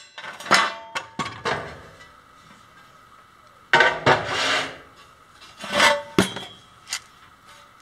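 Aluminium extrusion pieces and a cordless circular saw being handled and set down on a concrete floor: a series of metallic clinks and knocks, with a short scrape about four seconds in.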